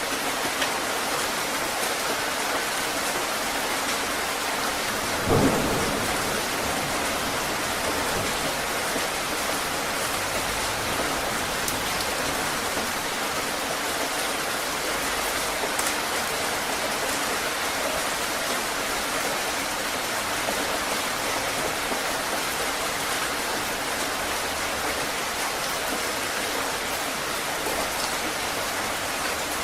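Heavy rain falling steadily, with a single short, loud low thump about five seconds in.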